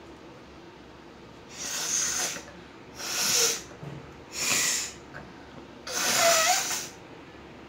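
A woman blowing her nose hard, four forceful blasts of air through the nostrils, each lasting under a second, with pauses between them.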